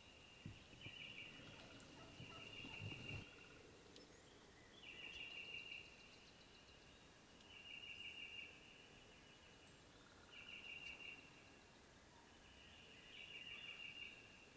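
Faint trilling animal calls, five in all, each a rapid pulsed trill of about a second on one high pitch, coming roughly every two and a half seconds. A low rumble runs under the first three seconds.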